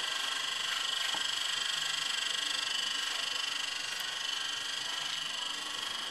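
Steady, finely pulsing high-pitched buzz of a cicada chorus.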